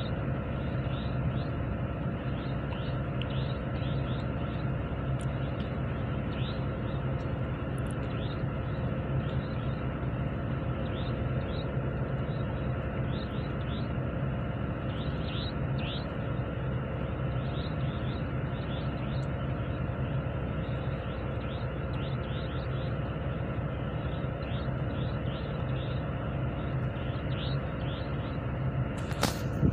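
Boat engine running steadily with a deep, even hum, heard from on board the boat, with many short high chirps scattered over it and a brief bump near the end.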